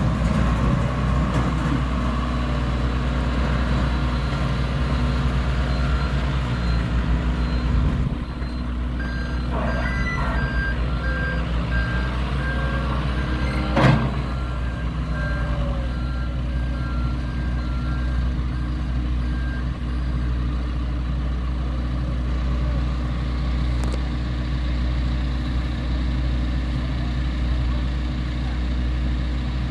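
Heavy diesel construction machinery running steadily. A reversing alarm beeps evenly for about ten seconds, starting about a third of the way in, and there is one loud bang about halfway through.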